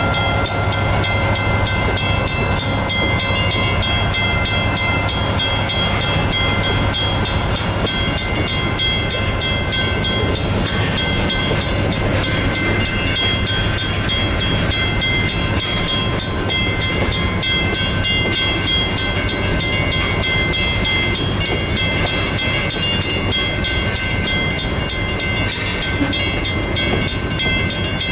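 Western Cullen Hayes mechanical crossing bells ringing with a rapid, steady stroke. Under them runs the low rumble of a slow freight train's hopper and tank cars rolling through the crossing.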